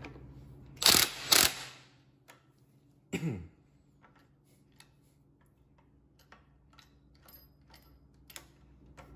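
Hand work on small metal engine parts while a new spring is fitted. Two loud, brief scraping clatters come about a second in, then a short falling twang or squeak a little after three seconds, then scattered light clicks and ticks of metal.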